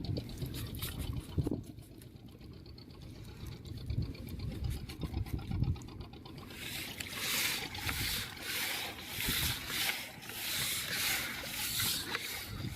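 Water splashing and swishing against a small boat at sea, with low thumps and rumble in the first half; from about seven seconds in, the splashing comes in quick, regular swishes.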